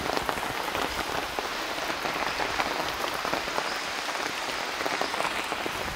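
Steady rain falling: a dense, even patter of many drops.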